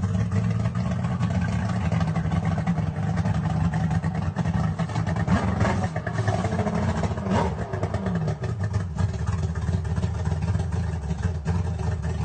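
Boat engine running steadily under way, a constant low drone with a broad hiss over it; the engine note dips briefly about midway through.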